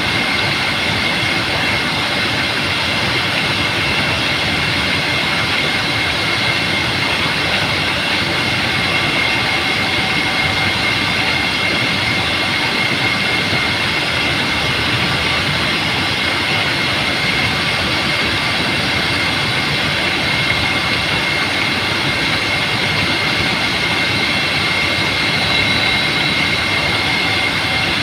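Steady rushing hiss of a water jet spouting from a lake's surface, its spray falling back and splashing on the water, with a thin steady high whine running through it.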